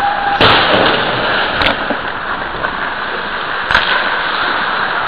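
Ice-hockey play heard from a goalie's helmet-taped camera: a steady scraping hiss of skates on the ice, with three sharp knocks, about half a second, a second and a half and nearly four seconds in.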